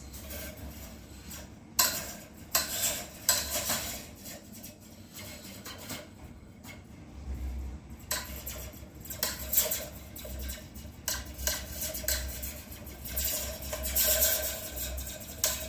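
Metal slinky fixed to a foam cup being struck and jiggled, making a string of irregular springy, metallic laser-blaster zaps that ring out through the cup.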